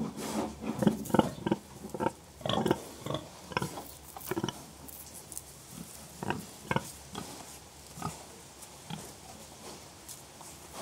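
Pigs grunting: short grunts coming one after another in quick succession for the first few seconds, then more spaced out.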